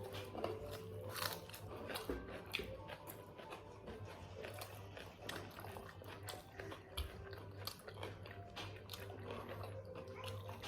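Close-miked chewing and biting of biryani, with frequent small irregular crunches and wet mouth clicks, over a steady low hum.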